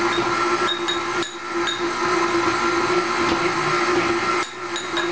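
Electric stand mixer running steadily at low speed, beating chocolate pudding, with a few light clinks of a metal spoon against a glass.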